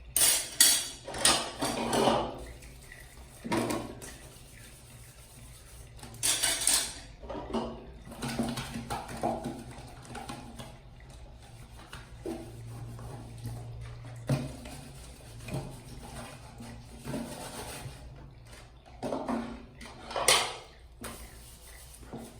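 Dishes and cutlery clattering as they are handled and washed, in irregular bursts, with some running water.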